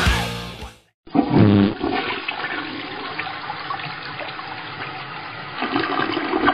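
Heavy metal music fades out within the first second, and after a brief silence a steady rush of water, like a toilet flush, starts suddenly and runs on.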